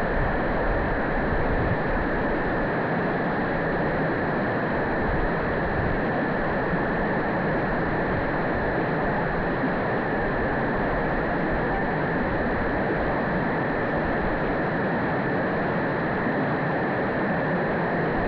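Mountain stream running: a steady, unbroken sound of flowing water.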